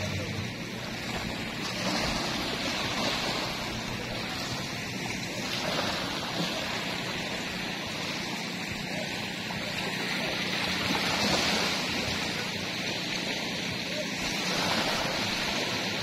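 Small sea waves lapping and washing up over a sandy shore, the hiss of surf swelling and easing every few seconds.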